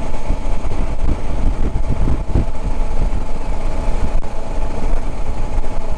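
Motorcycle engine running steadily while riding, with a constant low rumble.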